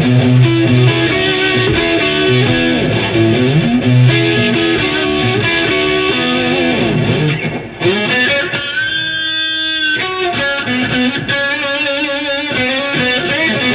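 Electric guitar played through a modded Marshall JCM 2000 TSL 100 valve amp, sounding really warm. It plays chords and single-note lines, with one long held note that wavers in pitch at about nine seconds in.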